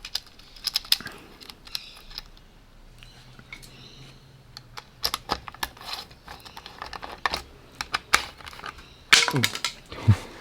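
Hand tools and bike parts clicking, tapping and knocking at irregular intervals during a mountain-bike build, with two short squeaks that drop in pitch near the end.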